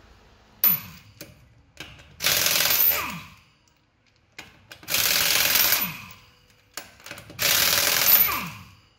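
Impact wrench spinning lug nuts off a truck wheel in three bursts of about a second each, one nut per burst, each burst winding down in pitch as the trigger is released.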